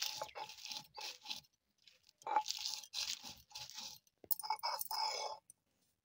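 Dried red chillies being crushed and ground on a stone slab (sil-batta) with a stone roller: repeated gritty crunching and scraping strokes of stone over the dry pods.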